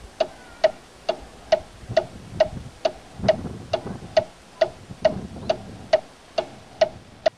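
Steady clock-like ticking, about two ticks a second, each tick crisp with a short ringing note. It stops just before the end.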